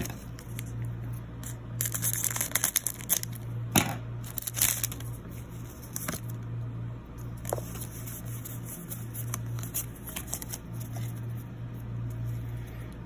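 Foil booster pack wrapper of a Pokémon Vivid Voltage pack torn open and crinkled, loudest in the first few seconds. After that come lighter rustles and clicks of the trading cards being slid and flipped against each other in the hand.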